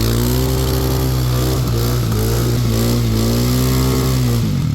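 Suzuki Vinson 500 ATV's single-cylinder four-stroke engine revved up and held at high revs with small dips, then easing off and dropping back near the end.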